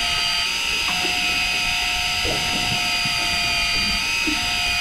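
Electric deep-drop fishing reel's motor running with a steady high-pitched whine.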